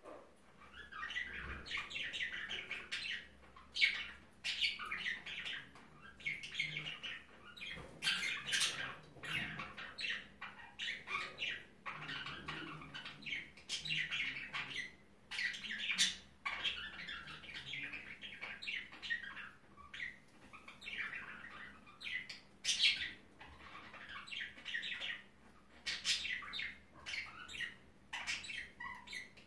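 Pet budgerigar warbling: a long, rambling run of squeaky chirps, clicks and squawks in stretches of a few seconds with short pauses.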